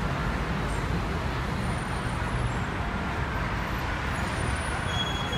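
Steady road traffic noise: a low rumble of cars and a bus on the street, with no single event standing out.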